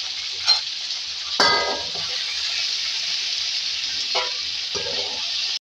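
Cut okra sizzling in hot oil with a steady hiss, while a metal strainer spoon scoops it out of the pan and knocks against the pan a few times, the loudest a ringing clang about a second and a half in.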